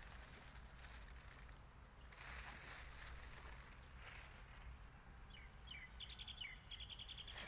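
Faint background noise, with a bird calling in the second half: a few short falling notes, then a rapid trill of repeated notes.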